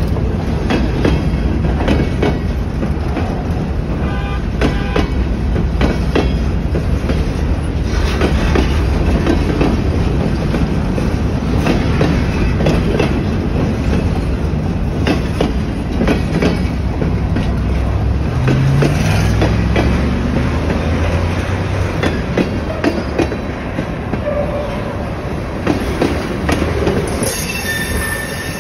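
Freight train cars rolling past close by: a steady rumble with wheels clattering over the rail joints, and occasional brief wheel squeals.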